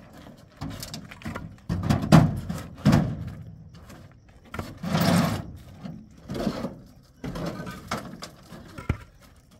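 A series of short rough scrapes and knocks, about one a second, from objects being handled and set down, with one sharp knock near the end.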